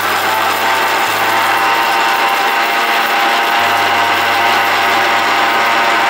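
Electric mixer-grinder (Indian mixie) running at full speed with a steel jar of dry-roasted whole spices, grinding them into garam masala powder: a loud, steady motor whine with gritty grinding noise.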